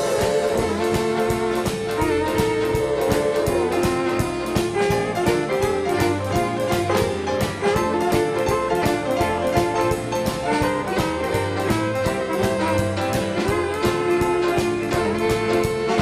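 Western swing band playing an up-tempo instrumental intro: fiddles, guitars and steel guitar over a steady, fast drum beat.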